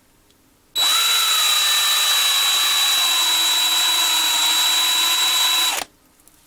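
Electric drill with a 3/16" bit running for about five seconds, drilling off the top of a diecast metal post. It starts and stops abruptly, and its whine sinks slightly in pitch as the bit bears into the metal.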